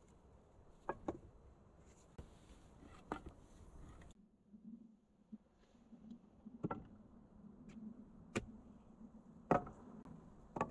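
Short logs knocking against a wooden log frame as they are handled and laid in place: about six sharp wood-on-wood knocks, a second or two apart.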